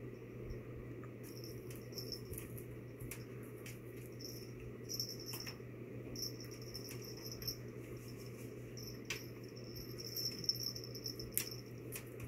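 Cat batting and pouncing on a small toy mouse on a wooden TV stand: scattered light taps and knocks from paws and toy on the surface, over a steady low hum. Short, high-pitched chirp-like sounds come and go throughout.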